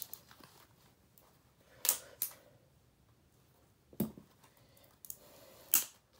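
Sharp clicks and cracks of the plastic housing and parts of a Sony cassette recorder being pried and pulled apart by hand, about four distinct snaps a second or two apart.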